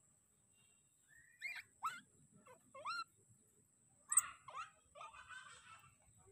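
A baby monkey giving a string of short, squeaky calls, each sliding up and then down in pitch, with a sharp click about four seconds in.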